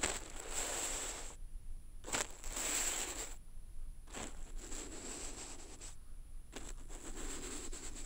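Ink brush dragged across paper, picked up by contact microphones fixed to the sheet: four strokes, each a noisy swish that starts sharply and lasts one to two seconds, with short gaps between them.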